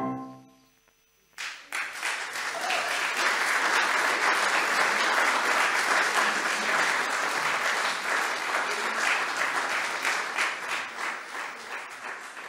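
A held electric-piano chord dies away, then after a brief pause a crowd breaks into applause about a second and a half in. The clapping is steady and dense, then thins out and fades near the end.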